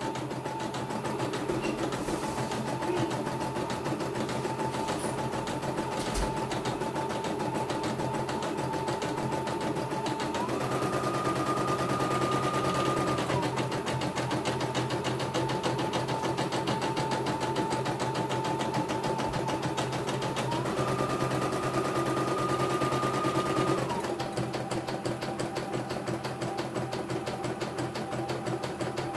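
CNY E900 computerized embroidery machine stitching a design: a fast, even chatter of needle strokes over a steady motor whine. The whine steps up in pitch twice for a few seconds, at about ten and about twenty seconds in, then drops back.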